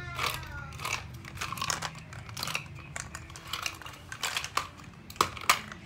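Small plastic toy gumball machine being handled, with irregular clicks and crinkling from the foil-wrapped candies inside and the plastic parts.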